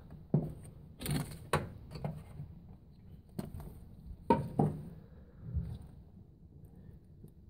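Irregular knocks and clicks from hands handling wiring and plastic connectors in a car engine bay, about seven in the first six seconds, then quieter.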